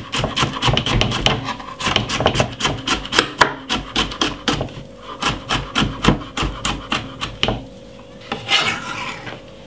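Knife chopping spring onion on a wooden chopping board, quick even strikes about four a second, stopping about seven and a half seconds in.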